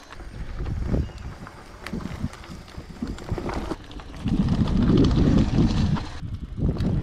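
Mountain bike rolling down a dirt forest trail: tyres on the ground, with short rattles and knocks from the bike over bumps and wind on the microphone. A louder rumbling stretch comes a little past the middle, lasting about two seconds.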